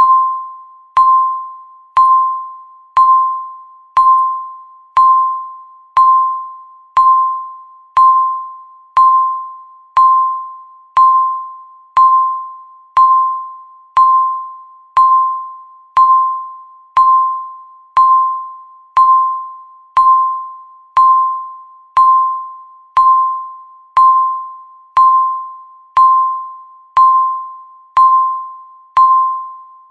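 Countdown timer beeping once every second, marking each second left. Each beep is the same single-pitched tone that starts sharply and fades away like a struck bell before the next one.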